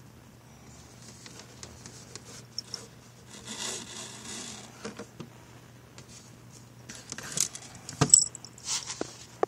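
A cat playing with dangled toys in a cardboard box: light scratching, rustling and tapping of paws and toys on cardboard and card. There is a stretch of rustling near the middle, then a cluster of sharper clicks and scrapes near the end, the loudest about eight seconds in.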